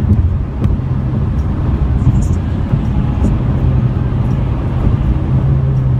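Steady low road rumble and tyre noise of a car driving at highway speed, heard from inside the cabin, with a light knock right at the start.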